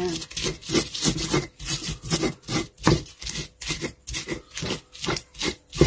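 Stone pestle (ulekan) scraping and crushing against a stone mortar (cobek) in quick repeated strokes, about three or four a second, grinding raw shallots, chilies and shrimp paste into sambal terasi.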